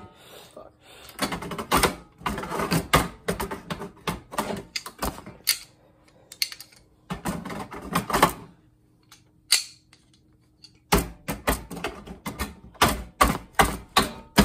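Irregular clicks, taps and knocks of hand tools working on the hard plastic and metal parts of an old monitor being taken apart, coming thick at the start and end with a quieter gap in the middle.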